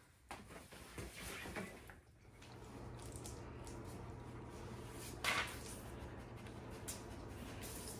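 A fabric backpack being handled, with rustling and a few clicks, for the first two seconds. Then a steady low room hum, with one short, louder noise about five seconds in.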